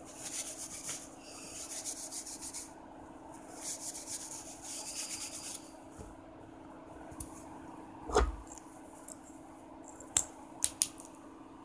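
Scratchy rubbing as a freshly wet-sanded quartz crystal is cleaned and handled, in two stretches of about two seconds each. A single knock comes a little after eight seconds, then three sharp clicks near the end.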